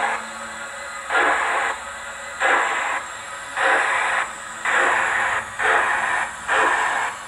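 Model steam locomotive's DCC sound decoder, playing a Mr Soundguy Bulleid Merchant Navy sound file through a small loudspeaker, giving slow exhaust chuffs over a steady hiss as the 00 gauge Hornby model pulls away. The chuffs come about a second apart and quicken slightly as the model gathers speed.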